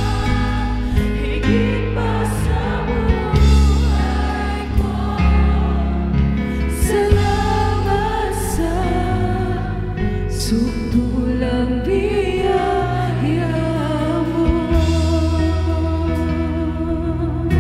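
Live worship band playing a Tagalog praise song: women's voices singing the melody in harmony over drums with cymbal crashes, acoustic guitar and bass.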